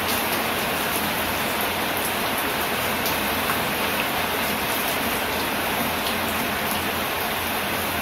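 Steady rain falling: an even hiss with scattered single drops ticking.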